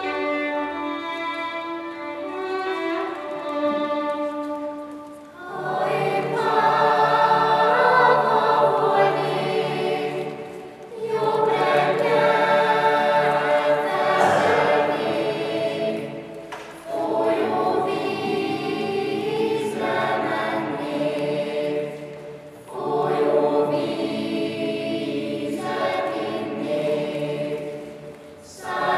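Solo violin playing a short melody, followed about five seconds in by a youth choir of girls' and boys' voices singing unaccompanied in phrases of about five or six seconds, with brief breaks between them.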